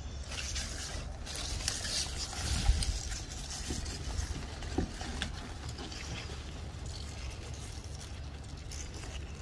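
Sweet pepper plant leaves rustling as a hand reaches in among them to pick peppers, with a few short sharp clicks, about three and five seconds in. A steady low rumble runs underneath.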